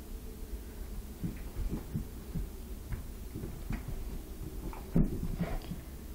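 Irregular soft thumps and scuffles of a pit bull and a Chihuahua playing on carpet, with a louder thump about five seconds in, over a steady low hum.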